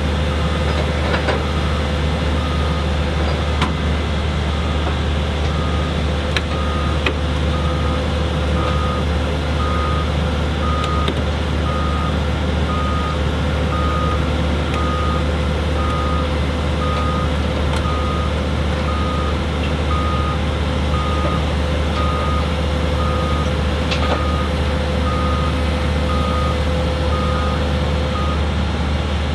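Vehicle reversing alarm beeping about once a second and stopping shortly before the end, over a steady low engine hum and a steady whine from heavy machinery being moved onto a lowbed trailer.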